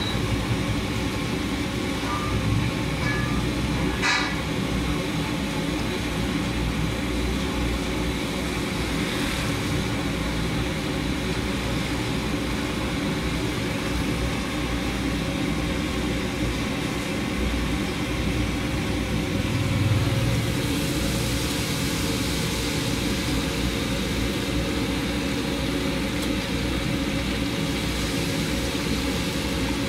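Steady engine rumble of street traffic, with a short horn toot about four seconds in. From about two-thirds of the way through, a hiss joins it: oil sizzling in a wide wok as food deep-fries.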